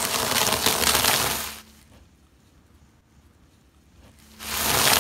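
Crunchy baked buns being crushed under a car tyre: a loud crackling crunch for the first second and a half, and another about four and a half seconds in.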